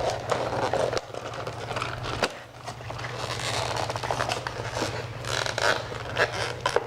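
Cardboard and plastic toy packaging being worked open by hand: tape pulling and ripping and packaging scraping, irregular, with a few sharp clicks.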